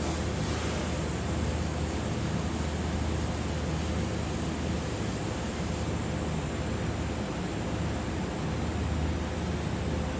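Welding arc running steadily on 2-inch schedule 10 stainless steel pipe during a weaving back-bead pass: an even hiss over a low hum.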